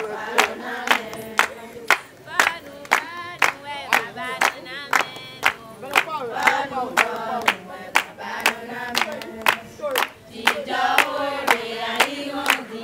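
A group of women singing together in chorus, clapping their hands in a steady beat about twice a second.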